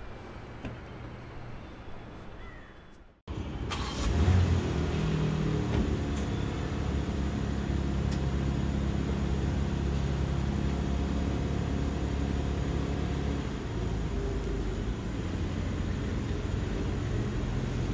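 BMW M4's S58 twin-turbo inline-six coming in about three seconds in, flaring briefly near the four-second mark and then running steadily.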